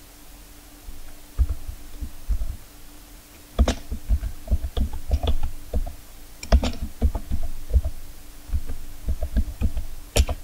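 Typing on a computer keyboard: irregular key presses, each a short click with a dull low thud, starting about a second and a half in. A faint steady hum runs underneath.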